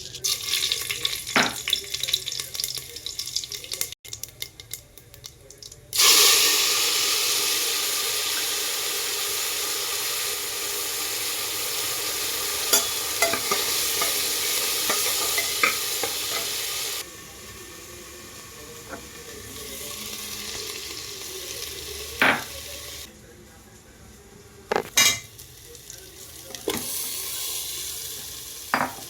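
Food frying in oil in a cooking pan while it is stirred, with a spoon knocking against the pan now and then. About six seconds in, a loud sizzle starts suddenly. It eases to a softer sizzle at about seventeen seconds, and a few sharp knocks of the spoon on the pan follow.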